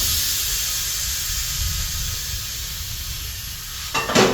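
Steady hiss of compressed air from a pneumatic tire changer, slowly fading, followed by a couple of sharp metallic knocks near the end.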